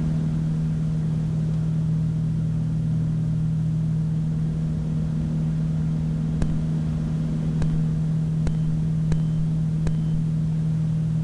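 Twin piston engines and propellers of a Piper Navajo droning steadily at climb power, heard from the cockpit. A few faint clicks sound in the second half.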